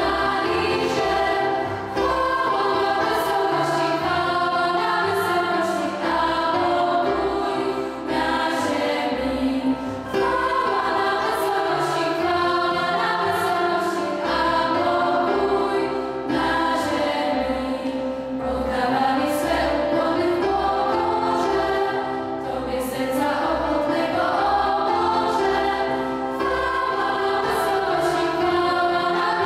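Girls' vocal ensemble singing a Polish Christmas carol (kolęda) together, several voices at once.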